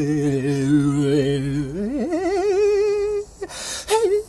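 A single voice singing wordless, improvised gibberish: it holds a low note with vibrato, slides up steeply to a much higher wavering note about two seconds in, then breaks off for a short breathy hiss before starting another note near the end.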